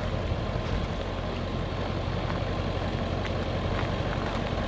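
Pickup truck engine idling with a steady low hum.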